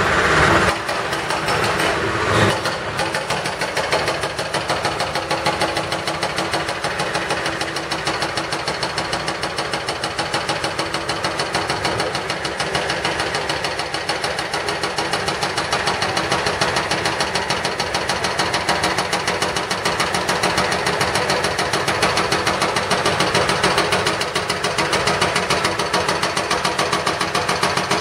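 Diesel engines of heavy construction machinery running steadily, with a rapid, even knocking throughout and a sharper knock about two and a half seconds in.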